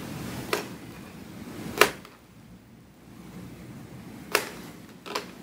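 Crinkle cutter chopping down through a pickle and knocking on a cutting board: four sharp knocks, the loudest about two seconds in.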